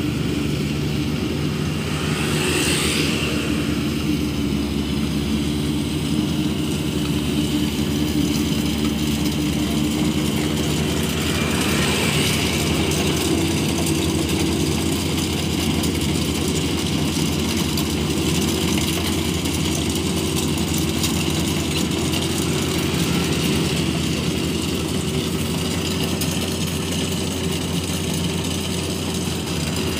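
Engine of a rice-harvesting machine running steadily at a constant speed.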